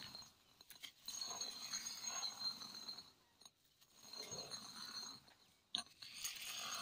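Hand-turned stone quern (thiruvai) splitting roasted green gram (mung beans): the upper stone grinding round on the lower in bursts about every two and a half seconds, with a sharp knock near the end.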